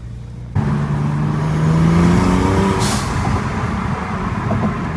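BMW Z4 sDrive35is's twin-turbo inline-six pulling away under acceleration, its note rising in pitch for about two seconds before breaking off with a brief hiss about three seconds in, then running on steadily.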